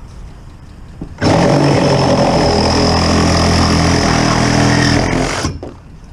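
A power tool's motor runs at a steady speed for about four seconds, starting suddenly about a second in and cutting off sharply.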